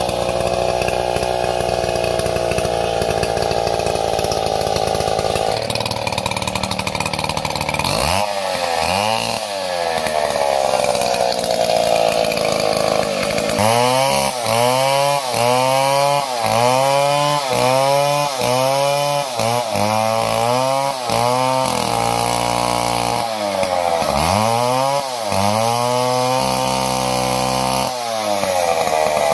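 Stihl chainsaw running steadily at high speed, then from about 8 seconds in revving up and falling back over and over, roughly once a second, as it cuts through the fronds at the crown of a felled fan palm.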